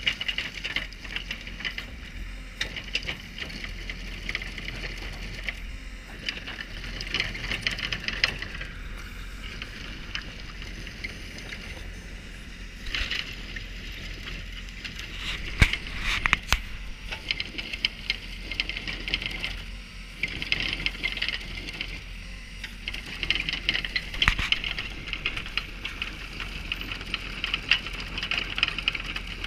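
An excavator-mounted cold-milling drum grinding up asphalt: a steady rough crackling with chips pattering and scattered sharp knocks, over the low hum of the carrier's engine.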